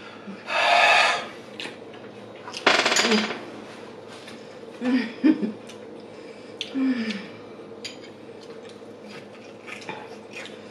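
Eating sounds: bites and chewing of crispy fried chicken, with short low 'mmm' hums of enjoyment. The loudest are two noisy bursts under a second each, one near the start and one about three seconds in.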